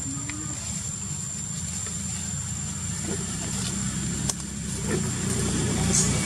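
Steady low rumble of an idling motor engine that grows a little louder near the end, with a faint, constant high-pitched tone over it.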